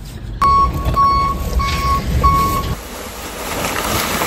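A sharp click, then a car's warning chime beeping four times, evenly spaced, with a steady high tone.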